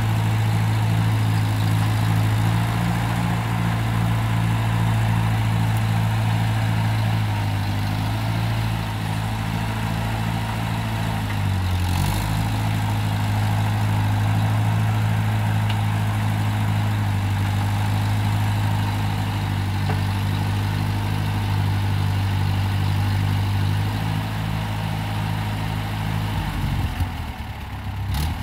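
Vintage farm tractor engine running steadily at a constant speed while it carries a log on its front-end loader. There is a single knock about halfway through, and the engine note drops near the end.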